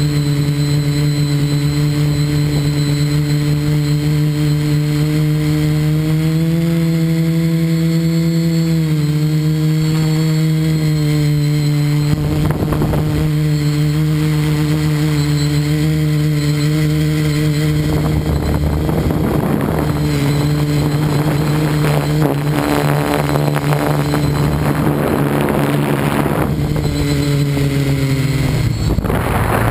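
Motor of an FPV radio-controlled model running steadily, heard through its onboard camera, with one steady hum and overtones. The pitch lifts briefly a few seconds in, gusts of rushing air come and go in the second half, and the pitch drops as it throttles down near the end.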